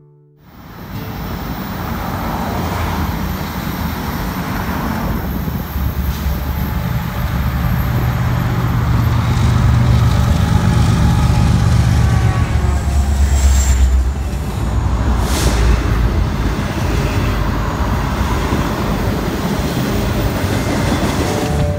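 Freight trains passing close by: the rumble and clatter of loaded coal gondolas and other freight cars rolling over the rails, fading in at the start. A BNSF diesel locomotive's engine drone builds up in the middle as it goes by on the next track, and there is one sharp metallic clank a little after that.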